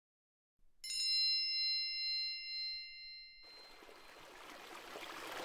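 A single bell-like chime about a second in, ringing with several clear tones and fading away over about two and a half seconds. Then the rushing of a stream flowing over rocks fades in and slowly grows louder.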